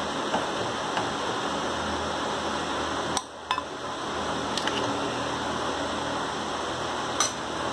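A metal ladle scraping and clinking against a pressure cooker and a steel bowl while cooked upma is scooped out, giving a few sharp clinks over a steady background hiss.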